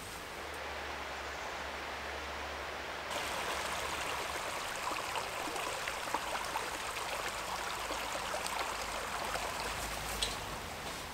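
Small rocky stream running over stones, a steady rush of water with small splashes and gurgles that grows louder about three seconds in.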